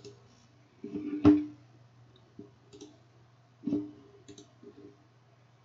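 Computer mouse clicks, a few single clicks with the sharpest and loudest about a second in and another near the middle, over a steady low electrical hum.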